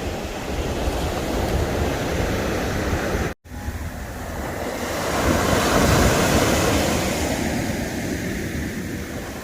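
Sea waves washing onto the shore, with wind buffeting the microphone. The sound drops out for a split second about three and a half seconds in; then a wave builds and breaks, loudest around six seconds in, and eases off.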